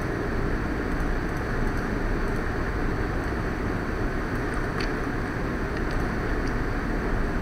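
Steady low background noise, like a rumble or hum, with a few faint clicks.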